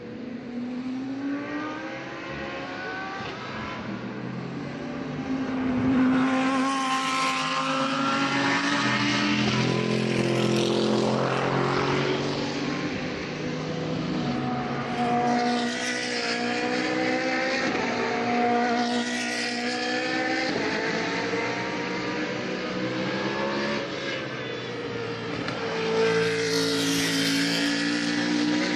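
GT3 race cars passing one after another at full throttle, several in turn, engine notes climbing through the gears with quick upshift breaks and swelling as each car goes by.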